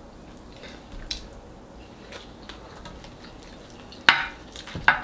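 Soft, quiet sounds of a meal being eaten by hand: faint mouth and finger noises over fish and rice. A sharp click comes about four seconds in, and a smaller one just before the end.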